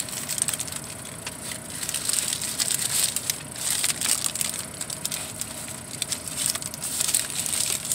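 Paper burrito wrapper crinkling and rustling in the hands, in irregular spells of crackling.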